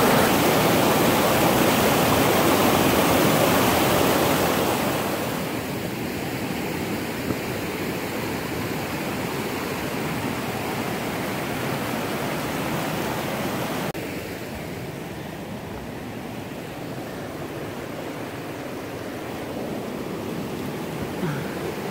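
River rapids rushing and splashing as a steady roar of water, loud at first and softening about five seconds in, then dropping suddenly to a quieter rush about fourteen seconds in.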